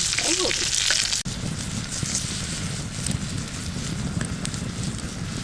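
Vegetables sizzling in a pan over a campfire. About a second in the sound changes abruptly to a steadier, lower rushing noise of the fire burning outdoors.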